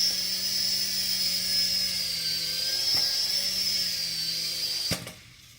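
Small electric RC helicopter (DEERC SQN-040) flying: motors and rotor blades running with a steady high whine over a lower hum, dipping slightly in pitch around two seconds in. The motors cut off suddenly with a click about five seconds in as the helicopter lands automatically.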